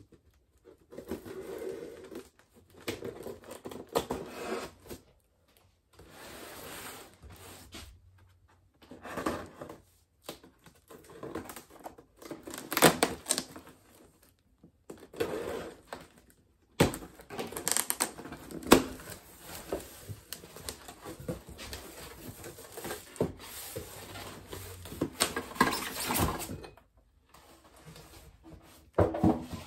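A cardboard shipping box being opened: packing tape slit with a small cutter and ripped, the cardboard flaps scraping and rustling, with many sharp clicks and short rips in uneven bursts. Near the end a foam packing block is pulled out.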